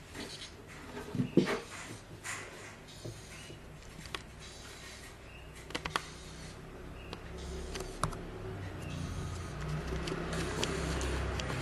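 Sphero Mini's small drive motors whirring as the robot ball rolls, the hum growing louder over the last few seconds, with scattered clicks and knocks.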